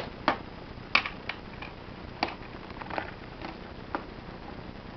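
A baby tapping a plastic ball against things: about eight sharp, irregular taps, the first few loudest, stopping about four seconds in.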